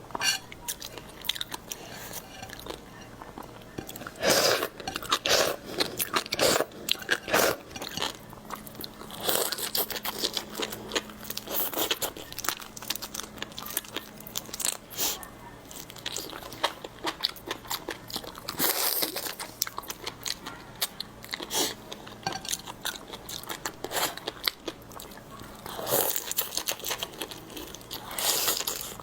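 Close-miked biting and chewing of seafood: irregular crunches and wet mouth clicks, with louder crunching bursts every several seconds.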